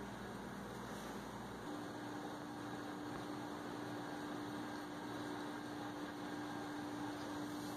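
Steady low electrical hum over faint background hiss, with a second, slightly higher hum tone coming in about two seconds in and holding steady; no taps or clicks.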